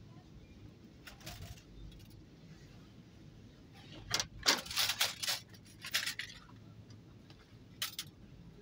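Metal wire barbecue grilling baskets clinking and jangling against each other as they are handled on the shelf. The clinks come in a few short clusters, the loudest about four to five seconds in.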